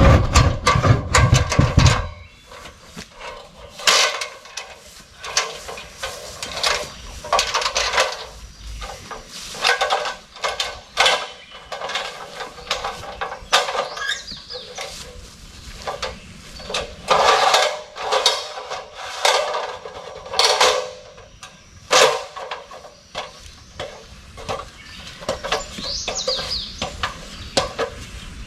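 Irregular knocks, clicks and scrapes of hands working a ladder and a tree-mounted solar security camera to take it down. A heavy low rumble comes in the first two seconds.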